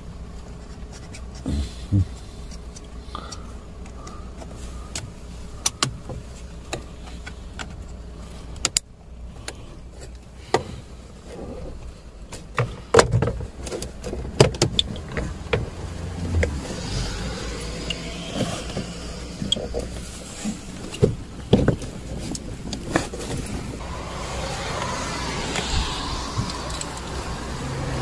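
Plastic under-dash trim panel being handled and pressed back into place, giving scattered clicks, taps and knocks of plastic.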